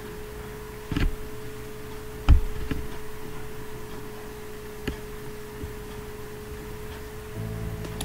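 A few scattered computer mouse clicks and light knocks, the loudest a thud a little over two seconds in, over a steady hum. Music starts near the end.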